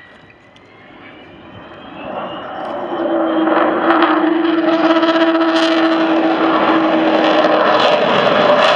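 Avro Vulcan XH558's four Rolls-Royce Olympus turbojets at high power as the bomber flies past and climbs. The jet noise swells from about two seconds in and stays loud, with a steady howling tone over it.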